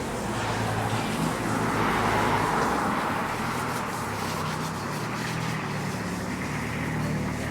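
Motor vehicle passing on a street: engine and tyre noise swells about two seconds in and then eases off, over a steady low hum.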